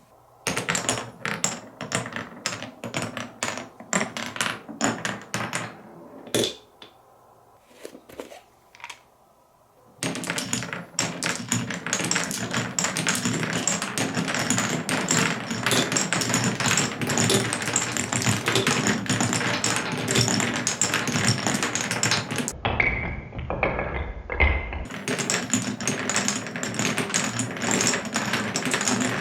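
Marbles clicking and rolling through a wooden Cuboro marble run: scattered separate clacks for the first ten seconds, then a steady dense rattle of marbles running along the wooden tracks. Around two-thirds of the way through, for about two seconds, the sound turns muffled and low as the marbles pass through holes inside the blocks, then the clatter returns.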